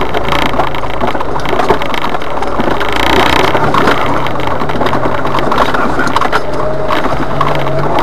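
Jeep Wrangler driving slowly over a rocky dirt trail, heard from inside the cab: the engine running steadily under a constant clatter of knocks and rattles as the tyres and body go over rocks and ruts.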